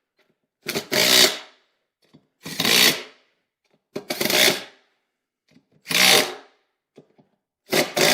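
Cordless impact wrench driving the bolts of a beadlock ring, in short half-second bursts about every second and a half, five times, with a small click as the socket goes onto each bolt before it runs.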